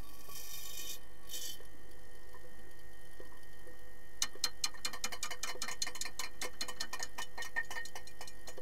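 Underwater hockey sticks clacking against the puck and the pool floor, heard through the water, with rapid clicks from about four seconds in over a faint steady hum. Two short hisses come in the first two seconds.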